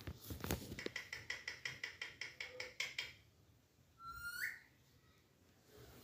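Alexandrine parakeet: a rapid train of clicks, about nine a second, for the first three seconds, then one short rising whistled call a little after four seconds in.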